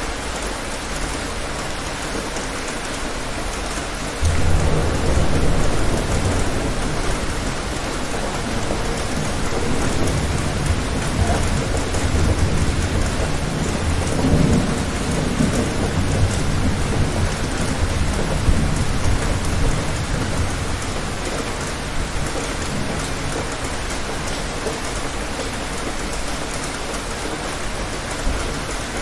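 Steady rain falling, with a roll of thunder that breaks in suddenly about four seconds in, rumbles on with a second swell near the middle, and slowly dies away.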